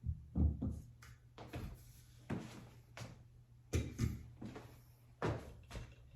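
Irregular knocks and clicks, about ten of them, as parts of a travel tripod are handled and fitted together.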